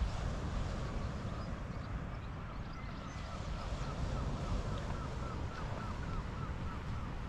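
A bird calling in a quick run of short, rising-and-falling notes, about three or four a second, from about two seconds in until near the end, over a steady low rumble.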